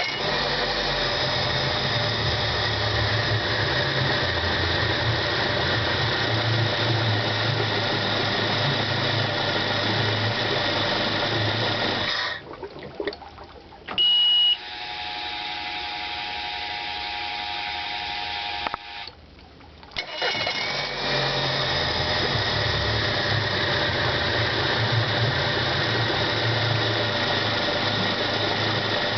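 Mercury 90 hp four-stroke EFI outboard running, then stopped about twelve seconds in. A short, loud, high beep sounds, followed by a few seconds of a steady, quieter hum. The engine catches again about twenty seconds in and runs steadily.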